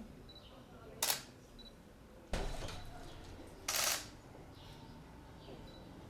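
Camera shutter firing twice, about a second in and again near four seconds, each a short crisp burst; a dull thump falls between them.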